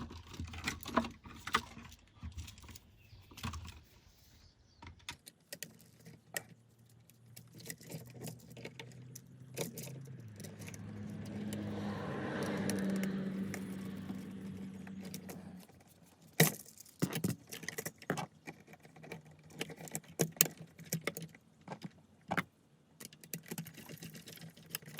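Small metallic clicks, taps and jingles of a screwdriver and stiff electrical wires being handled as the black wires are moved onto the terminal screws of a new GFCI outlet. In the middle, a passing vehicle's engine hum swells and fades, the loudest sound for several seconds.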